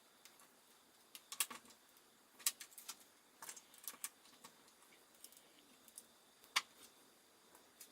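Small plastic Lego bricks clicking and tapping as they are handled and pressed together: sharp, irregular clicks, the loudest about six and a half seconds in.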